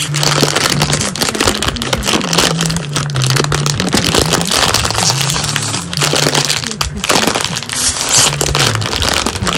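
Crisp plastic snack bag crinkling and crackling as both hands pull at its sealed top to open it, with music playing in the background.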